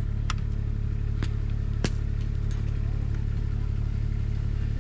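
Steady low hum of an idling engine, with three short sharp cracks in the first two seconds, the last one the loudest.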